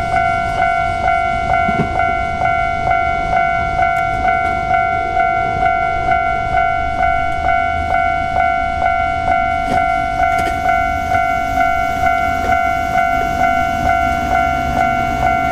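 Japanese railway level-crossing warning bell ringing its repeated electronic clang, about two strikes a second. Underneath it, a passing electric train rumbles and grows louder about two-thirds of the way through.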